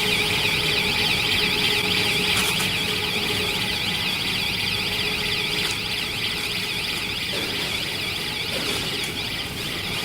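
Warbling electronic alarm: a high tone sweeping rapidly up and down several times a second, sounding continuously over a steady machine hum and cutting off suddenly at the end.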